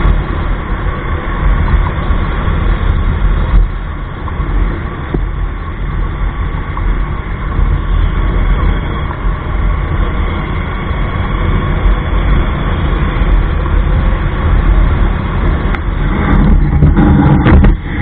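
Steady wind rush on the microphone of a camera riding on a moving motorcycle, with the motorcycle's engine and road noise underneath; it gets a little louder near the end.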